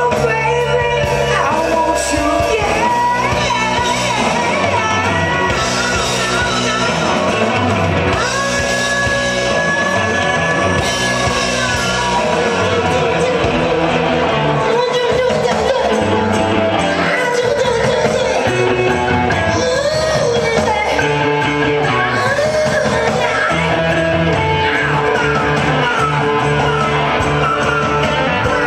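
A live rock band playing: a singer over electric guitars, bass guitar and drums, with one long held note about nine seconds in.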